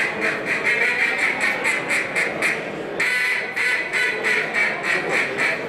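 Hand-held duck call blown in fast runs of quacks, about five a second, with a new run starting sharply about three seconds in.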